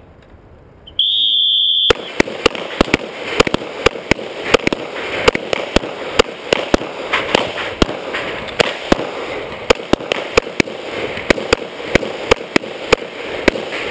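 A shot timer's start beep sounds for about a second. Then rapid, irregular pistol fire from several shooters at once breaks out, several shots a second, with the nearest shots coming from a Glock pistol firing at bowling pins.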